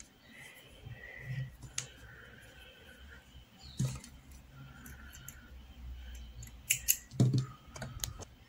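Soft rustling and scattered faint clicks of hands handling a crocheted piece, needle and thread, with a few sharper clicks near the end.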